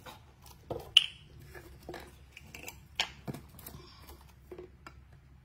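Scattered light clicks, taps and rustles of small things being handled in a small room, with a sharp click about a second in and another about three seconds in.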